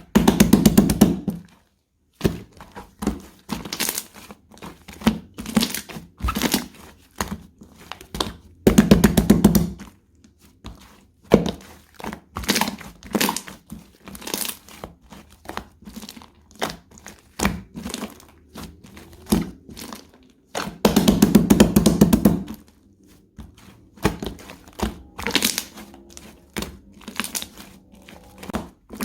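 Bubbly slime being pressed and squished by hand, its trapped air bubbles popping in rapid crackling clicks. The popping comes in three louder, denser bursts: at the start, about nine seconds in, and about twenty-one seconds in.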